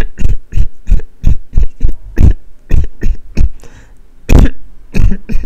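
A coughing fit: a long run of short, hard coughs, two to three a second, pausing briefly about three and a half seconds in before a few more.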